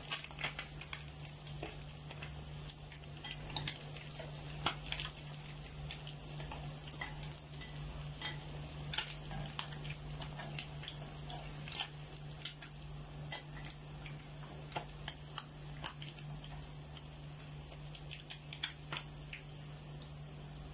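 Fish frying in hot oil in a pan: a steady sizzle with frequent sharp pops and crackles of spattering oil.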